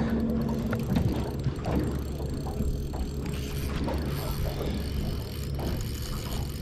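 Spinning reel's drag buzzing steadily as a hooked barramundi pulls line off it.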